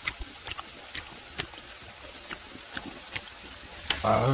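Close-miked chewing of grilled hanwoo beef: wet mouth clicks and smacks every half second or so over a steady hiss. About four seconds in, a short hummed voice sound.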